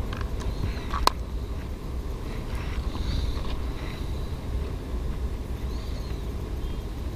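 Steady low wind rumble on the microphone, with a single sharp click about a second in and a few faint high chirps.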